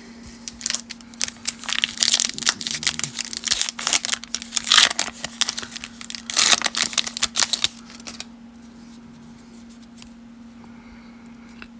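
Plastic wrapper of a baseball card pack crinkling and tearing as it is ripped open by hand, in a run of dense crackles that stops about eight seconds in. A faint steady hum lies underneath.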